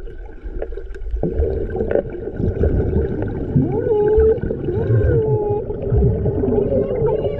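Muffled sound recorded under the water's surface: voices humming in slow gliding tones, clearest from about halfway in, over a low rumble of water movement and bubbles.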